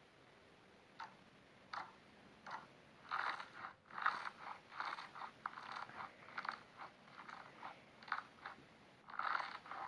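Slime being squished and pressed by hand, with short crackling, crunching pops. They are sparse at first and come several a second from about three seconds in.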